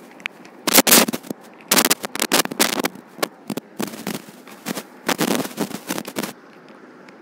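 Grey suiting cloth being handled on a wooden cutting table: loud, crackly rustling in irregular bursts that stops a little past six seconds in.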